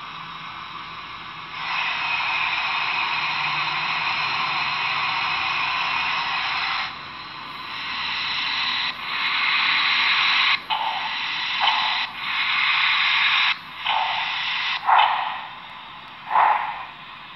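Steam hiss effects played through the small speaker of the BLI HO Southern Pacific #891 model steam locomotive's Paragon 3 sound system. A long, steady hiss starts shortly after the beginning. In the second half it breaks into a series of shorter hisses with brief gaps between them.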